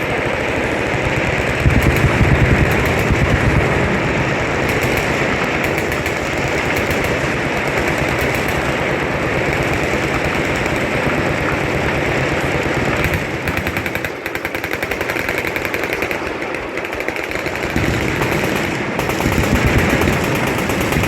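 Sustained automatic gunfire from several machine guns firing at once on a shooting range: a dense, continuous rattle of shots. It eases briefly about two-thirds of the way through, then picks up again.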